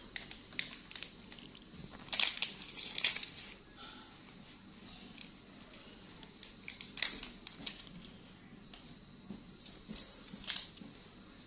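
Foil-and-plastic pouch of a pregnancy test strip crinkling as it is torn open and handled, with a few sharp crackles a second or more apart. A faint steady high-pitched whine runs underneath, breaking off briefly about two-thirds of the way through.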